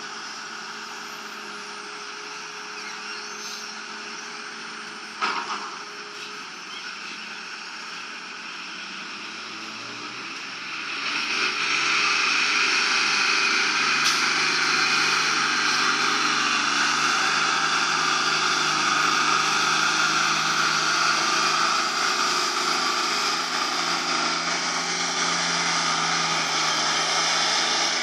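Excavator engine running steadily, then working harder from about eleven seconds in and staying loud and steady, a rough sound from an underpowered machine under digging load. A single knock about five seconds in.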